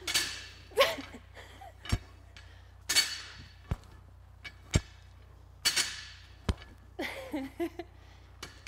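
Lightweight barbell power cleans: the bar knocks down four times, each a short sharp thunk, between quick, forceful exhales from the lifter.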